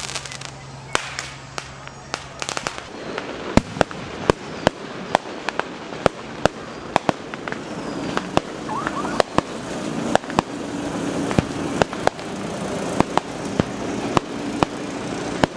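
Display fireworks going off: a steady string of sharp bangs from aerial shells, about two a second, with a quicker burst of crackling bangs in the first couple of seconds.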